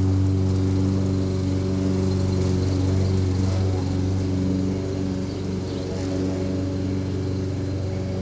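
Toro Personal Pace Recycler walk-behind mower's engine, which the owner believes is 163cc, running steadily at full speed as it cuts grass into the bagger. It fades slowly as the mower moves away.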